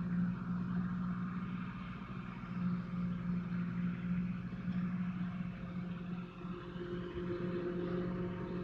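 Microwave oven running with a steady low hum, heating slime.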